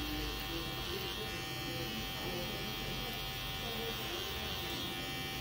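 Electric T-blade hair trimmer buzzing steadily as it cuts along the hairline beside the ear.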